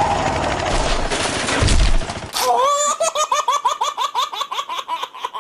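Engine-like rumbling noise that swells into a loud low thump about two seconds in. It then breaks off into high-pitched, rapidly pulsing laughter, a baby-like giggle.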